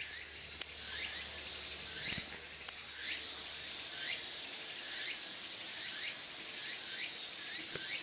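A chorus of insects makes a steady high buzz. Over it a short rising chirp repeats about once a second, and there are a couple of faint clicks.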